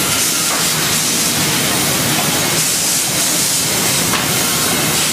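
Sawmill machinery of a Chip-N-Saw line running, a steady loud hissing noise over a low rumble.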